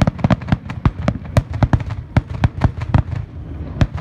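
Fireworks finale: a rapid, irregular barrage of loud bangs from bursting aerial shells, several a second, with the last strong bang near the end.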